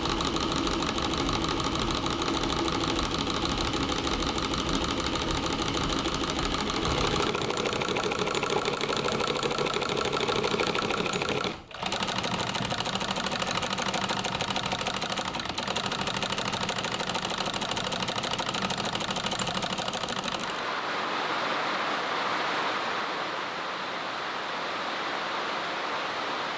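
Electric sewing machine stitching in a fast, even run, stopping briefly about halfway through. About 20 seconds in, the stitching gives way to a steady hiss.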